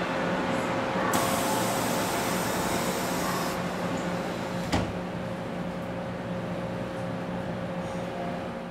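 Subway train standing at a platform with a steady electrical hum. Its sliding doors close with a hiss of air, and a single sharp thump follows a little under five seconds in.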